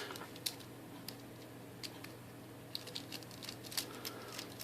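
A few faint, light metallic clicks and taps, spaced irregularly about once a second, as a dimple lock and small tools are handled, over a low steady hum.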